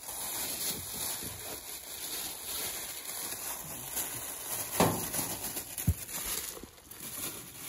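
Plastic grocery bag rustling and crinkling as it is handled, with two short soft knocks a little past the middle.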